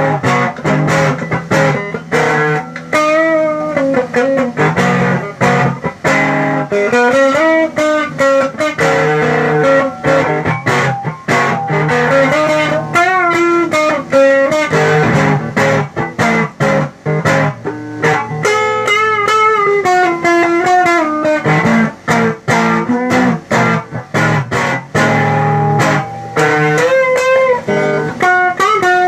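Electric guitar played through an effects unit: melodic lead lines with many bent notes, phrase after phrase.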